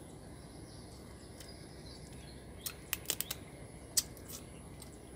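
Crab shell being cracked and broken apart by hand: a few sharp cracks and clicks in the middle, the loudest about four seconds in. Faint bird chirps behind.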